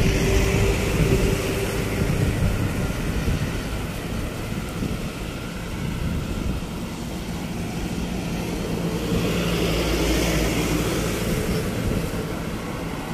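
A motor running steadily with a low rumble, swelling a little about ten seconds in.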